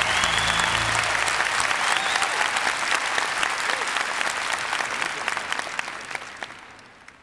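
Audience applauding, with the last low note of the music dying away in the first second. The applause fades out over the final couple of seconds.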